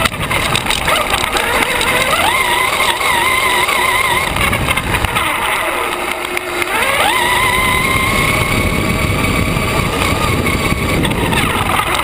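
Brushless electric motor of a 1/5-scale RC buggy on 22.2 V whining as it drives, its pitch climbing about two seconds in, sinking, then climbing sharply about seven seconds in and holding high. A steady rushing noise runs underneath.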